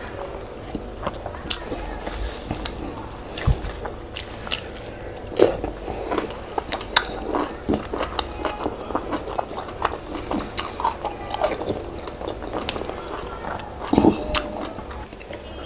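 A person chewing and eating boiled yam with Benin owo stew, with many irregular sharp mouth smacks and clicks.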